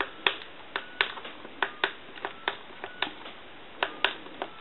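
Push-buttons on a TA-1042A military field telephone's keypad pressed one after another, about a dozen sharp plastic clicks, several of them followed by a short faint tone as each digit is dialed.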